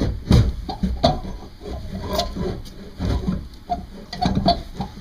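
Irregular metal clinks, knocks and scraping of hand work on an Atomic 4 marine engine as a stubborn part is worked into place.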